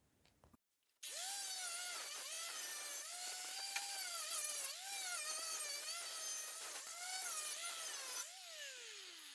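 Small high-speed rotary abrasive tool whining as it cleans corrosion off the steel windscreen pillar, its pitch dipping repeatedly as it is pressed against the metal. Near the end it is switched off and winds down with a falling pitch.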